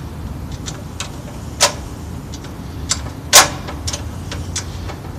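Screwdriver driving a screw into the metal guard bracket of a radial arm saw: a string of small irregular clicks and metal taps, with two louder clicks, the second at about three and a half seconds the loudest, over a low steady hum.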